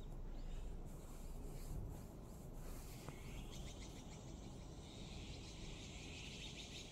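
Birds outside calling, faint at first, then a fast run of rapid repeated chirps starting about three seconds in and carrying on, over a low steady background of outdoor noise.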